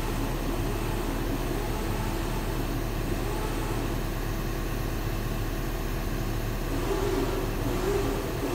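A diesel engine running steadily at idle, a constant low drone with a steady hum under it.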